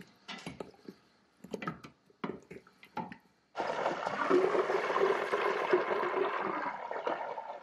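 A wooden spoon knocks and scrapes a few times against the stainless-steel Instant Pot insert among chunks of solid beef tallow. About three and a half seconds in, this gives way to a steady bubbling: the tallow, melted with about a cup of water and salt, is boiling in the pot on the sauté setting during wet-method rendering.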